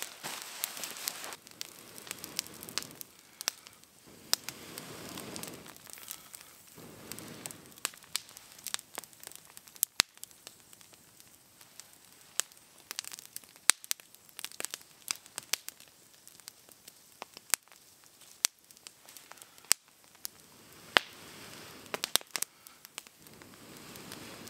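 Wood campfire crackling, with irregular sharp pops and snaps. A few stretches of rustling come and go over it.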